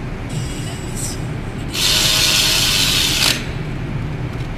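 A power tool runs as a loud hissing burst for about a second and a half. A fainter, shorter hiss comes just before it, over a steady low background hum.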